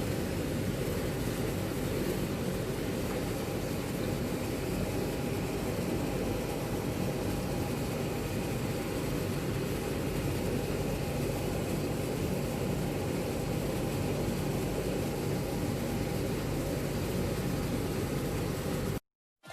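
Steady rumbling background noise with hiss, even throughout, cutting off abruptly just before the end.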